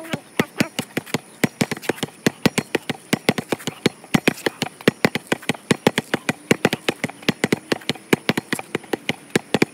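A basketball dribbled hard and fast on concrete, several sharp bounces a second in a steady rhythm. The bounces come from a repeated combination of pound dribbles, crossovers, between-the-legs and behind-the-back dribbles.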